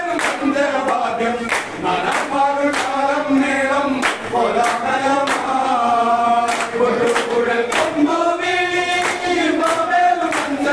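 A group of dancers sings a Kerala Kaikottikkali (Onakkali) folk song together, keeping time with rhythmic hand claps about every two-thirds of a second.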